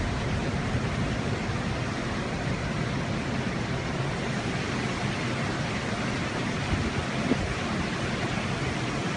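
A steady rushing noise, with a brief faint knock about seven seconds in.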